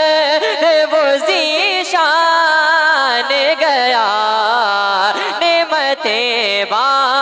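A young man singing a naat into an amplified microphone, drawing out long ornamented, wavering notes with no clear words, with no instruments.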